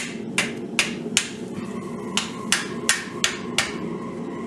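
Hammer blows on hot steel over an anvil, about three a second: four strikes, a short break, then five more, as the piece is cupped. A faint ringing tone hangs between the later blows.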